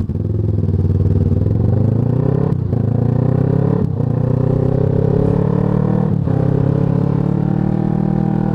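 Motorcycle engine pulling away and accelerating, its pitch climbing steadily. Three brief dips, about two and a half, four and six seconds in, are the throttle closing for upshifts.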